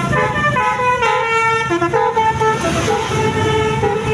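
Bus telolet horn, the multi-tone horn of an Indonesian tour bus, playing a quick tune of changing notes over a low engine rumble.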